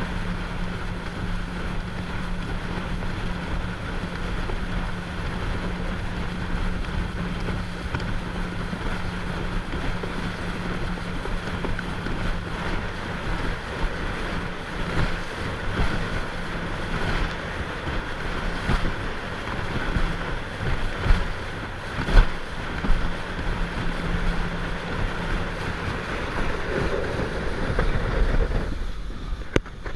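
Motorboat under way: a steady engine tone under rushing wind on the microphone and water noise, with a few sharp knocks about two-thirds through. The noise drops off just before the end.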